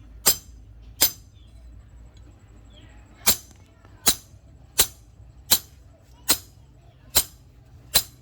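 Hand hammer striking steel on an anvil: nine sharp ringing blows a little under a second apart, with a pause of about two seconds after the second blow.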